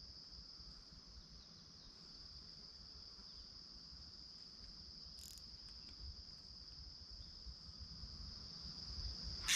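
Faint, steady, high-pitched insect chorus of crickets trilling without a break, over a low background rumble.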